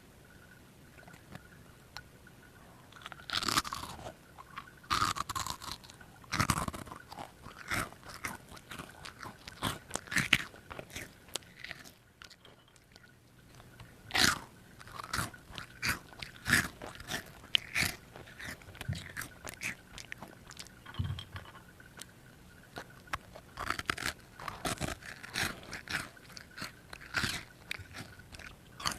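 A child biting and chewing a crunchy chocolate snack, crisp crunches coming in clusters with a short lull about halfway through.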